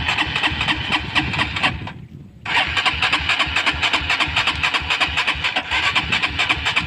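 An old motorcycle engine that stalled after riding through mud, being started twice: a fast pulsing crank-and-sputter for about two seconds, a short break, then a longer run of about four and a half seconds. Each attempt cuts off abruptly.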